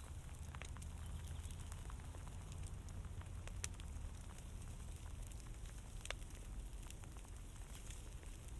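Fire crackling, with scattered sharp pops over a low, steady rumble.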